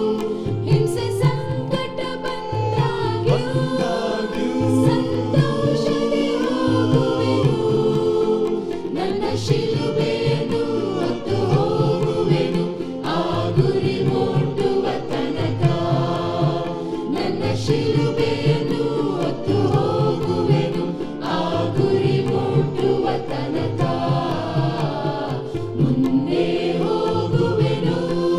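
Choir singing a Christian hymn with instrumental accompaniment and a steady bass beat.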